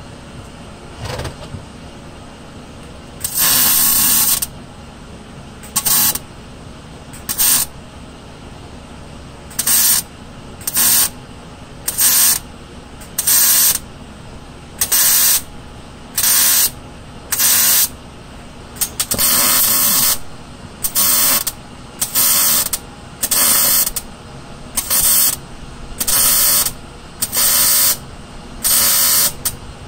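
Wire-feed welder laying about twenty short stitch welds on a car's sheet-metal body, each a noisy burst under a second long, roughly a second apart, with two longer welds about four seconds and twenty seconds in. The welds are kept short because longer ones burn through the thin sheet metal.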